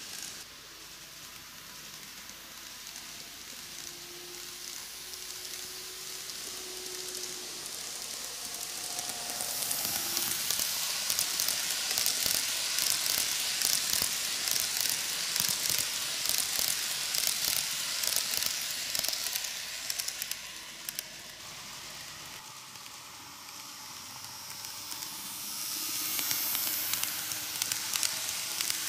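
An N-gauge model train, a KATO ED79 electric locomotive with a ten-car express, running on TOMIX superelevated track. Its small metal wheels make a steady hiss with rapid fine clicking. The sound grows louder as the train passes close, drops about two-thirds of the way through, then rises again as it comes round once more.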